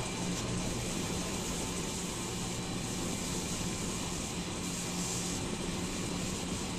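Midi wood lathe running steadily: an even motor hum with hiss.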